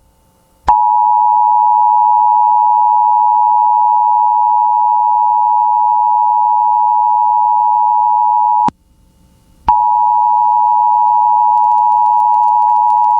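Emergency Alert System attention signal: a loud, steady two-tone alarm that starts about a second in, breaks off for about a second after eight seconds, then sounds again.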